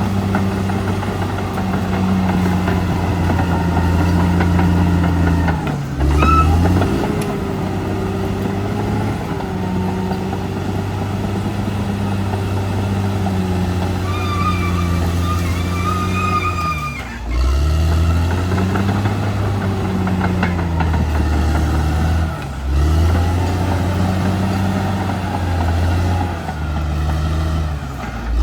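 Caterpillar D6R XL bulldozer's diesel engine running steadily under working load. Its note dips and picks back up about six seconds in, again around seventeen seconds and around twenty-two seconds. Brief high squeals come in near six seconds and again around fourteen to sixteen seconds.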